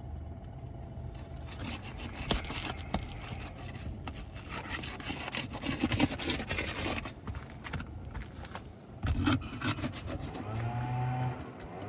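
A metal roofing tool scraping and prying under asphalt shingles, a gritty rasping with many sharp clicks and snaps as the shingle is worked loose from its seal. Near the end a steady low hum begins.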